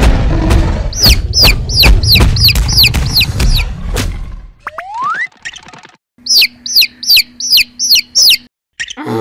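Cartoon baby-chick peeping: two runs of quick cheeps, each falling in pitch, about three a second, the first over a low rumble. A short rising whistle-like glide sits between the runs, and a falling glide begins near the end.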